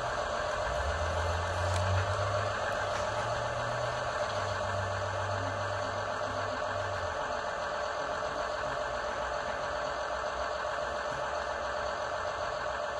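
Sound decoder in an O gauge model railcar playing a recorded diesel rail bus engine idling through the model's small speaker, with a deeper hum beneath it for about the first seven seconds.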